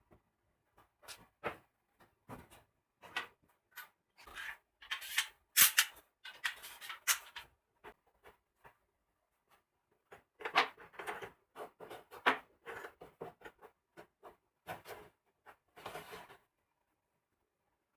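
Irregular taps, knocks and short scraping strokes of hand work on wood, in two busy spells with quiet gaps between.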